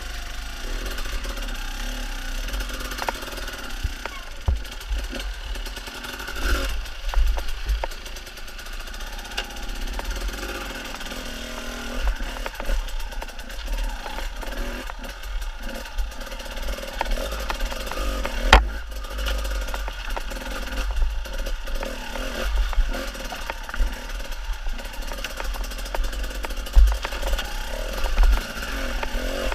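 Enduro motorcycle engine running and revving as the bike rides up a rocky stream bed, with frequent knocks and clatter from the rocks; the sharpest knocks come about two-thirds of the way through and again near the end.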